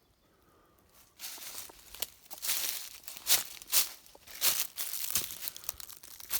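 Footsteps crunching and scuffing over loose rock and debris, starting about a second in as an irregular run of crunches.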